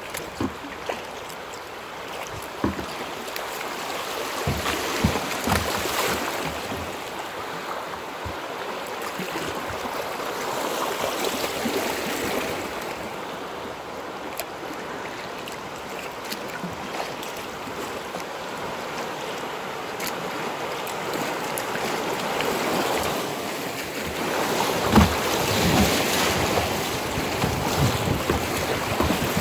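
River water rushing and splashing against a kayak's hull close to the bow as it runs a stretch of moving water, with scattered sharper splashes; the water gets louder and rougher near the end as the kayak enters a rapid.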